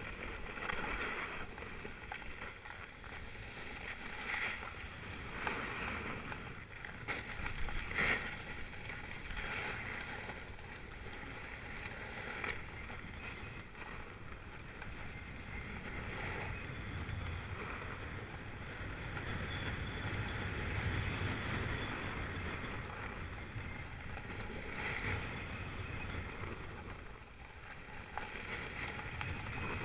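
Edges carving and scraping over packed snow during a downhill run, swelling with each turn every few seconds, with wind rumbling on the microphone.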